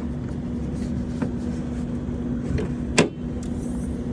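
A vehicle engine idling with a steady low hum. A few light ticks and one sharp click come about three seconds in.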